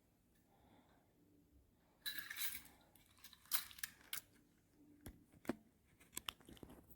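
Handling noise: a brief rustle about two seconds in, then a string of irregular light clicks and knocks from small hard objects being moved about.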